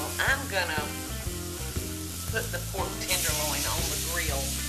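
Pork tenderloin sizzling as it sears in a hot pan. The sizzle grows louder about three seconds in.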